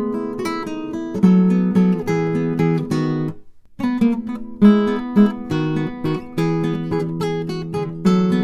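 Instrumental acoustic guitar music, plucked notes in a steady flow, breaking off briefly about three and a half seconds in before resuming.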